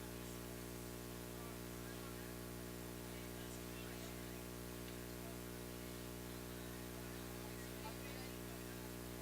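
Steady electrical mains hum with a stack of overtones, likely from the sound system, over faint crowd chatter.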